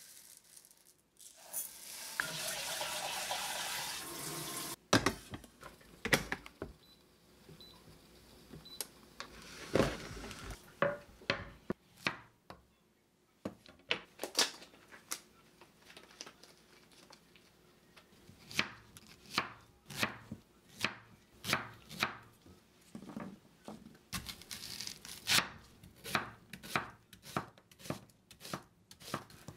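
Chinese cleaver slicing vegetables on a wooden cutting board, knocking in an even rhythm of a little over one stroke a second for the last ten seconds or so. Earlier, a few seconds of pouring or rinsing sound and a few scattered knocks of kitchenware.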